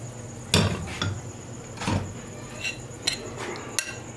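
Kitchen utensils and dishes clinking and knocking against a frying pan: several sharp clinks, the loudest about half a second in, over a faint steady background.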